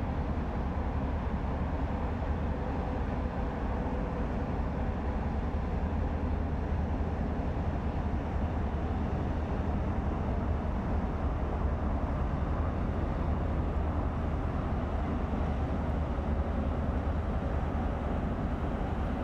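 Steady low drone of inland cargo ships' diesel engines passing on the river.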